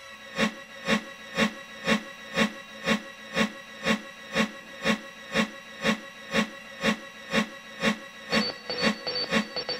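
Background music with a steady beat of about two pulses a second over held tones; a higher tone and extra off-beat pulses come in near the end.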